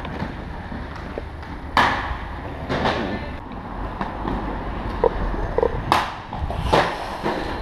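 Inline skate wheels rolling over granite paving, with several sharp clacks of skates landing and striking a stone ledge. Wind rumbles on the microphone in the middle.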